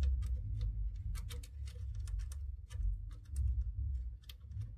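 Irregular small plastic clicks and taps as fingers try to work a small part into place in the P1P printer's plastic top housing, over a low handling rumble; the part is not yet lined up.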